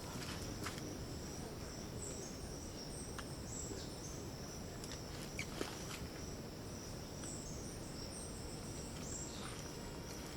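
Tropical forest ambience: a continuous high insect drone with scattered short high chirps, over a steady low rushing noise.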